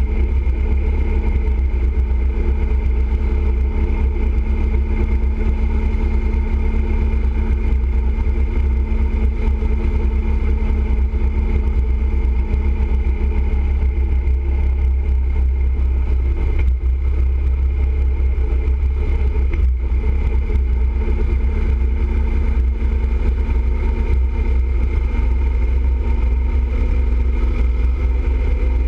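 Motorcycle cruising steadily at highway speed, its engine giving a constant hum under a heavy rumble of wind on the microphone.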